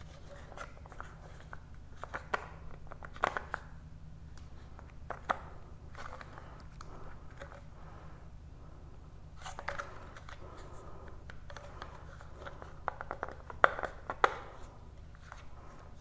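Scattered clicks, taps and rustling of hard plastic as a washing machine drain pump is handled and its parts fitted together by hand, in several short bursts with the sharpest clicks near the end.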